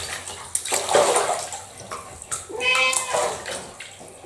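Bath water sloshing and splashing as hands wash a British Shorthair cat in a bathtub, with the cat giving one short meow about two and a half seconds in.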